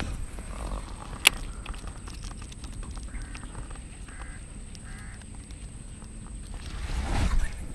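Three short animal calls, a second or less apart, over a low outdoor rumble. There is a single sharp click about a second in and a louder rustle near the end.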